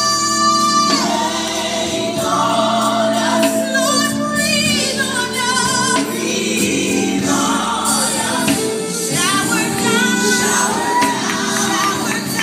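Gospel song: a choir singing with sustained, sliding vocal lines over backing music.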